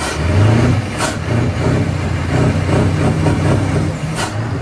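Heavy truck diesel engine running steadily with a deep, slightly pulsing note, broken by three brief sharp sounds: one at the start, one about a second in and one near the end.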